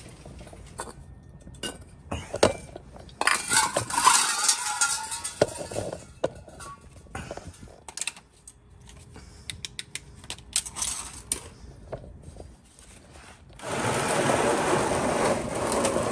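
Scattered clinks, knocks and rustling from hand work under a car, with a busier, noisier stretch about three to six seconds in. A steady rushing noise starts about two seconds before the end.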